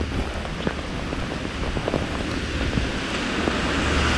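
Heavy rain on a wet street, with drops ticking on the GoPro and wind rumbling on its microphone. The hiss swells near the end as a car passes on the wet road.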